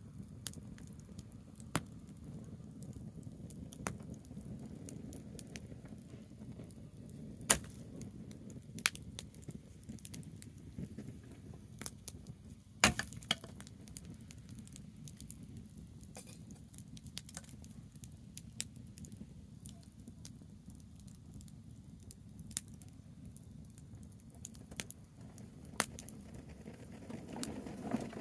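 Campfire of burning branches crackling, with irregular sharp pops over a low steady rumble; two pops, about 7 and 13 seconds in, are the loudest.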